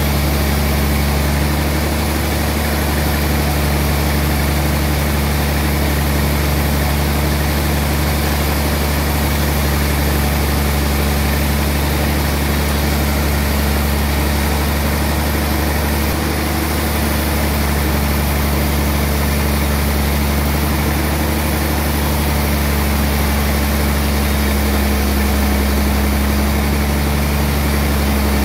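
Band sawmill running steadily as it cuts lengthwise through a large trembesi (rain tree) log, a loud, even, low machine hum that does not change.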